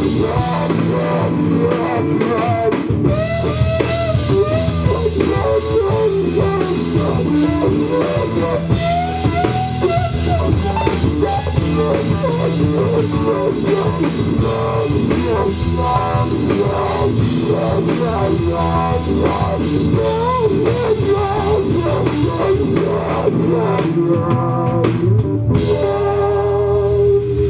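Instrumental funk-rock band music: a drum kit and bass groove under a lead guitar line full of bends and vibrato. Near the end the lead settles onto a long held note.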